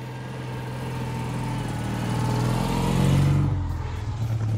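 Citroën 2CV's air-cooled flat-twin engine as the car drives up and passes close by. It grows louder to a peak about three seconds in, then drops a little in pitch as it goes past.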